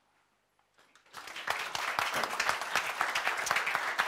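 An audience breaks into applause about a second in, many hands clapping, after a brief near silence.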